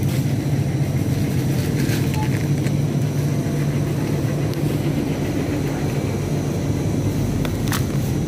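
Steady low hum and rumble of refrigerated supermarket freezer cases and store ambience, with a few faint clicks.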